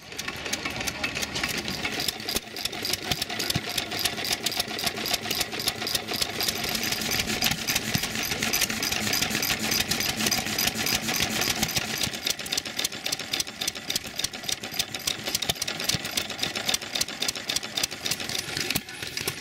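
Antique single-cylinder stationary gas engines with big flywheels running, a quick, even rhythmic beat of sharp clicks and exhaust chuffs.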